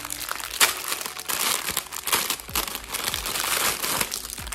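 Packaging crinkling and rustling as an online-order parcel is handled and unwrapped, with sharp crackles throughout; the loudest comes about half a second in.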